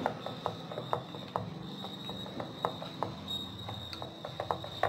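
Wooden rolling pin rolling out dough on a round wooden chapati board: irregular light clicks and knocks, about two or three a second, as the pin and board shift under the strokes.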